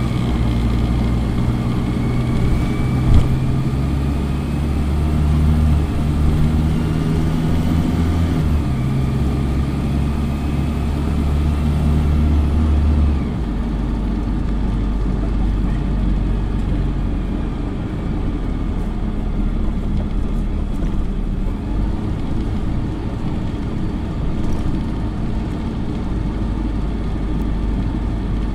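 Dennis Dart single-deck bus's diesel engine pulling hard at speed, heard from inside the saloon. The engine note steps down about eight seconds in and drops again about thirteen seconds in, then runs on steadily lower. A thin high whine over it fades out about twelve seconds in.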